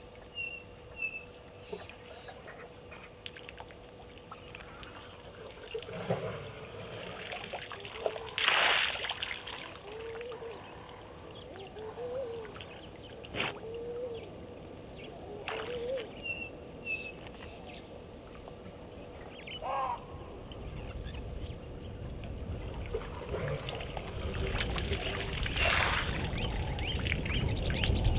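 African elephant drinking at a waterhole: water splashing and pouring as it draws water up its trunk and empties it into its mouth, with two louder splashes, one about eight seconds in and one near the end. Small birds chirp now and then, and a low rumble builds over the last few seconds.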